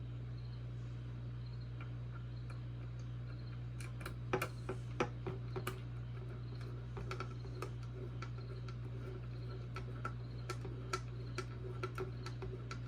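Small irregular clicks and ticks of a Phillips screwdriver turning small screws into a robot kit's parts, starting about four seconds in and going on several times a second, over a steady low hum.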